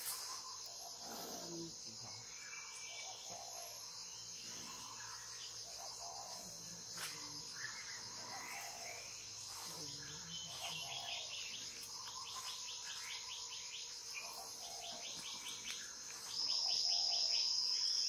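Steady high-pitched insect drone, louder for the last second or two. Over it, a pitta gives short calls about once a second, which the title calls its mating call, and a fast trilling call comes in the middle.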